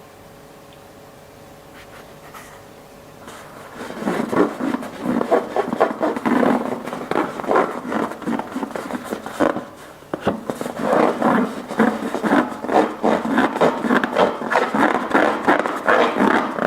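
Slime being squished and mixed by hand: dense, irregular sticky clicks and crackles that start about four seconds in and continue, with a short pause near the middle. A faint steady hum comes before them.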